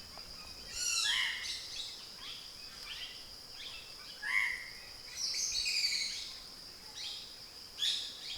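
Forest birds calling in short, quick sweeping notes, several times, over a steady high-pitched insect buzz.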